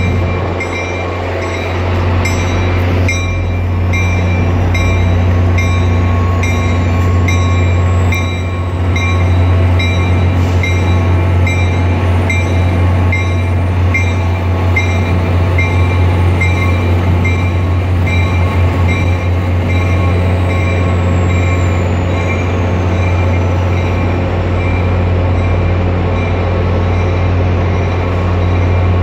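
An EMD F40PH-3C diesel locomotive running with a steady low drone, its bell ringing in even strokes about once a second, echoing off the station. The bell stops about two-thirds of the way through.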